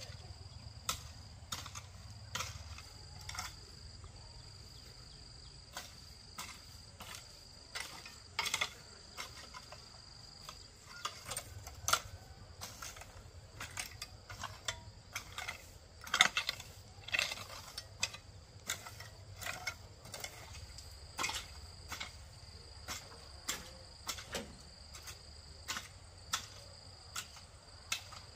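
Hand-tool chopping: sharp knocks of a blade or hoe striking, irregular and about one or two a second, the loudest a little past the middle. Behind them an insect keeps up a steady high drone that drops out now and then.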